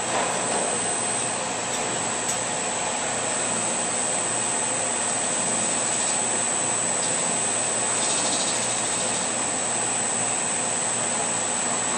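TRAK 1630 lathe running with its spindle turning at 800 RPM while the tool cuts along the workpiece diameter: steady machine noise with a constant high-pitched whine over it.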